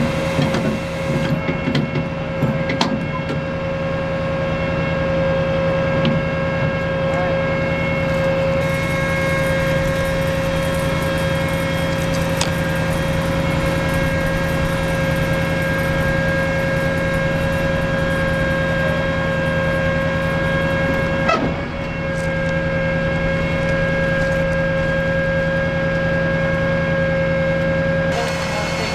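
M270 MLRS launcher's diesel engine running steadily with a constant whine over it while its hoist lifts a rocket pod container. A few metal clanks in the first few seconds as the hoist cables are latched onto the pod.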